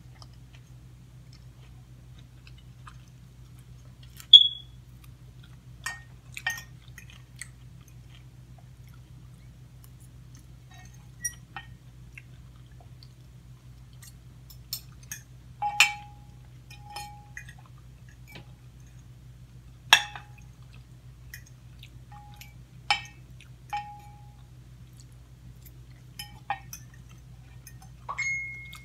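A metal fork and spoon clinking and scraping against a bowl while eating, with sharp irregular clinks, a few of which ring briefly, and quiet chewing between them. A steady low hum runs underneath.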